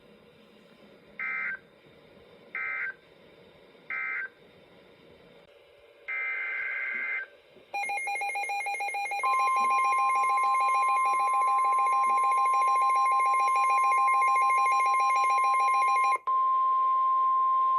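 Emergency Alert System tones: three short warbling digital code bursts and then a longer one, followed by a harsh buzzing receiver alarm. About a second and a half into the alarm a steady single-pitch alert tone, the NOAA Weather Radio 1050 Hz warning tone, joins it and holds for about nine seconds. The buzzing alarm cuts off with a click shortly before the end.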